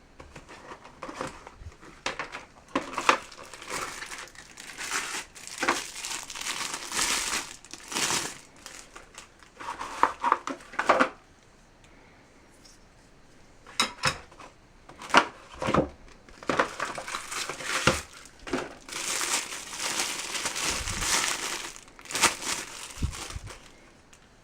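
Packaging crinkling and rustling as throwing knives are unwrapped and handled, with a few sharp clicks about halfway through.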